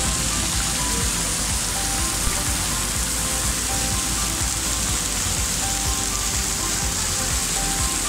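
Umbrella Waterfall's water falling as a shower of drops onto rock and pools, heard close up from beneath the spray: a steady, rain-like hiss.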